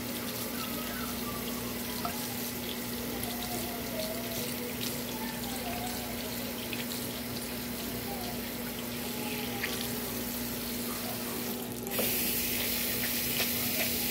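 Tap water running steadily into a sink, getting louder and brighter about twelve seconds in.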